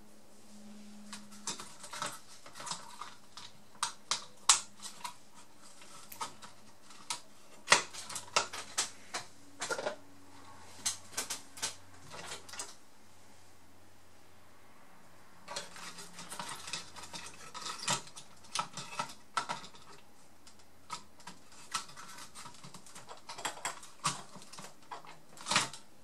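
Irregular light clicks and taps of small metal hand tools and parts being handled during laptop repair, coming in quick runs with a pause of a couple of seconds around the middle. A faint steady low hum lies underneath.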